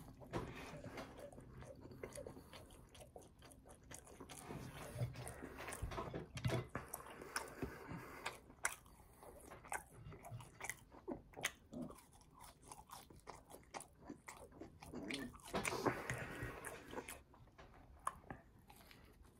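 A person biting and chewing a bacon cheeseburger and french fries: a continuous, irregular run of short mouth clicks and crunches, louder in two stretches, about a third of the way in and again about four-fifths of the way through.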